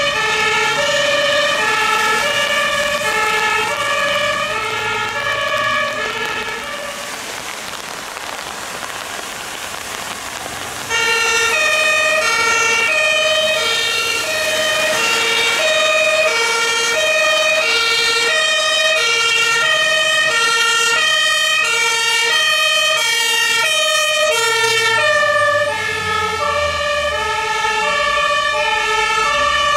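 German fire engines' two-tone Martinshorn sirens sounding their alternating high-low call as they drive past. The horn fades to road and traffic noise about a quarter of the way in, then a second truck's horn cuts in abruptly and sounds through the rest.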